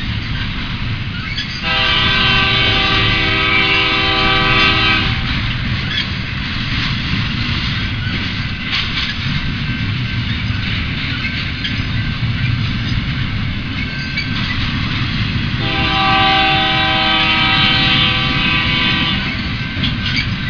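Union Pacific intermodal freight train passing with steady rumble and rail noise. The locomotive's air horn sounds two long blasts, about two seconds in and again about sixteen seconds in. Each blast is a chord of several tones lasting about three seconds, and is really loud.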